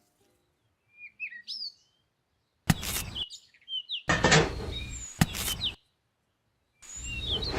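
Birds chirping in short rising and falling calls, broken several times by loud, noisy bursts that start and stop abruptly.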